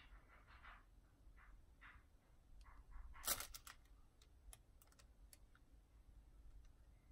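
Near silence, with faint scattered clicks and soft rustles of handling, and one louder rustle about three seconds in.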